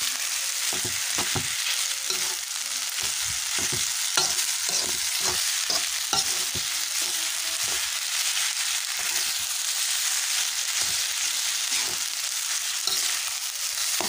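Fried rice sizzling in oil in a metal pan while a metal spatula stirs and turns it. The spatula scrapes and knocks against the pan at irregular intervals over a steady frying hiss.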